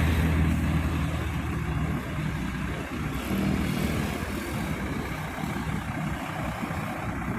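Engine of a large road vehicle running, loudest in the first two seconds and then fading into general traffic rumble.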